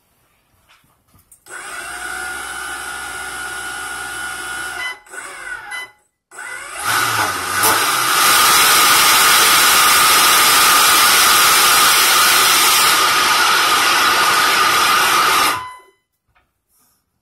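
Electric ducted fan driven by a brushless DC motor, running with a steady whine for about three seconds, stopping briefly, then spooling up to a much louder steady whine with rushing air. It cuts off suddenly near the end.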